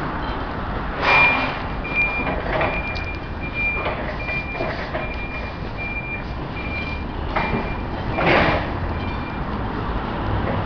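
A forklift's reversing warning beeper sounding a string of short, high, single-pitch beeps for about eight seconds, over steady street traffic. Vehicles swell past about a second in and again near the eight-second mark.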